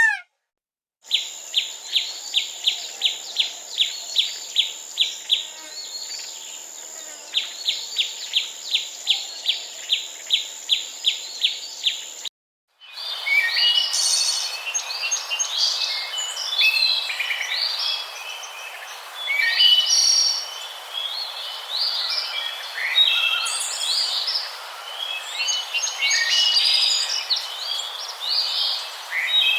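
Birds calling in two separate recordings. First a bird repeats a short sharp note about three times a second over a steady high buzz. Then, after a brief break, several birds chirp and sing together in a busy, varied chorus.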